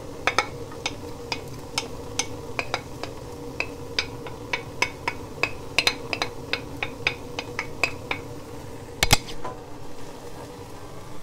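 Diced red onions tipped from a bowl into warm olive oil in a sauté pan and then stirred with a wooden spoon: scattered sharp ticks and light crackles, several a second, over a steady low hum, with one loud knock on the pan about nine seconds in.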